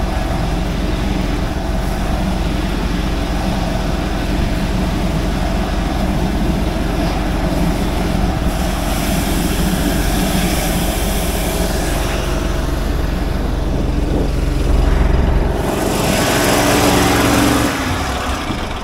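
Van-mounted high-pressure sewer jetter running steadily, its engine-driven pump droning while the jetting hose works in the drain line. A louder rushing noise swells for a couple of seconds near the end, then the sound falls away as the machine is throttled down.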